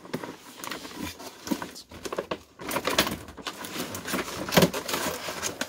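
Cardboard box and clear plastic packaging being handled and moved: a run of scrapes, light knocks and rustles, with a sharper knock near the end.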